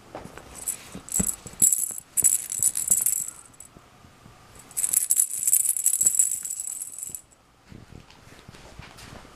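A perforated plastic cat-toy ball with a rattle inside, rattling as a kitten bats it and it rolls across a carpet: two spells of shaking, from about half a second in to about three and a half seconds, and again from about five to seven seconds, with light knocks between.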